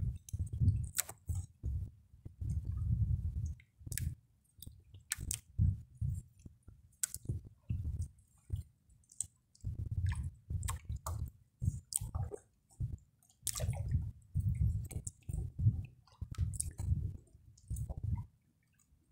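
Wet fishing net being hauled in by hand over the side of a wooden boat: irregular dull knocks and wet squishing, with sharp clicks scattered throughout.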